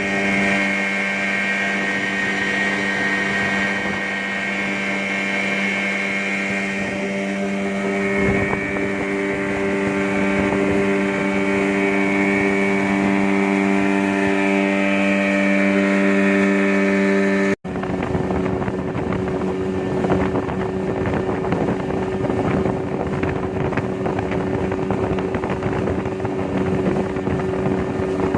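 Yamaha Enduro 15 hp two-stroke outboard motor running steadily as the boat moves along, its pitch shifting a little. About two-thirds of the way through there is a brief break, after which the engine carries on under wind noise on the microphone and rushing water.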